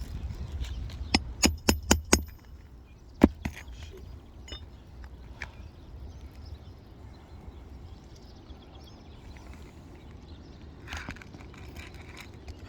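Hammer striking a roofing nail into asphalt shingles: five quick metallic strikes about a quarter second apart, then one sharper strike about a second later, followed by a few faint taps.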